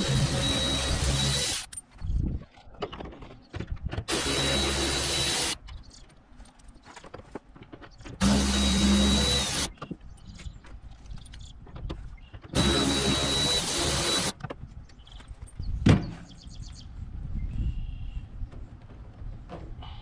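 Red Milwaukee cordless power ratchet running in four short bursts of about a second and a half each, with a steady high whine, spinning nuts off the bolts of a pontoon deck cleat being removed. A single sharp knock follows near the end.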